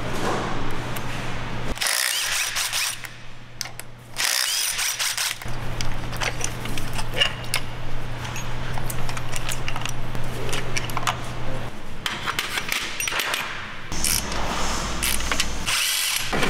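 Cordless power driver running in short spurts, backing bolts out of an engine's accessories, with clicks and clinks of metal tools and parts between the spurts.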